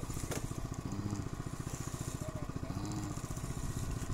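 Engine aboard a fishing boat running steadily with a fast, even chug.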